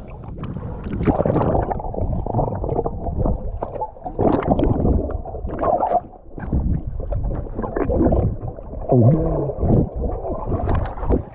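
Muffled gurgling and sloshing of seawater, heard through an action camera's waterproof housing as it is dipped below the surface.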